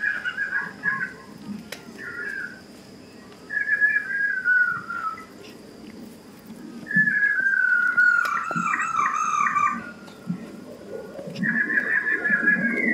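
Dog whining in a series of high, falling whines, the longest drawn out for a few seconds about seven seconds in.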